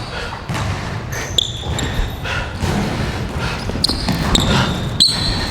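A basketball is being dribbled on an indoor court, with several short, high-pitched squeaks of sneakers on the floor.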